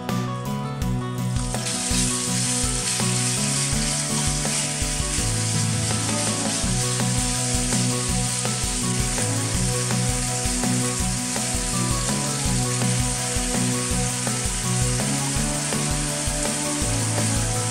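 Diced raw chicken landing in hot oil in a non-stick frying pan and sizzling, starting about a second and a half in and going on steadily while it is stirred with a fork. Background music with a steady bass beat runs underneath.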